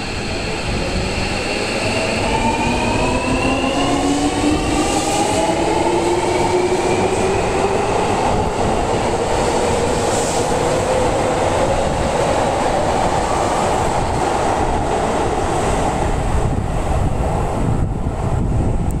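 Seibu Railway commuter train pulling out of an underground station. Its motor whine climbs in several rising tones as it accelerates, over a steady rumble of the cars running past the platform.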